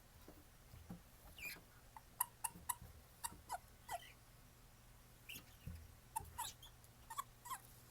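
Male Japanese stream toads (Bufo torrenticola) calling: short, faint squeaky chirps from several males, each with a slightly different call, scattered irregularly and sometimes in quick runs of two or three.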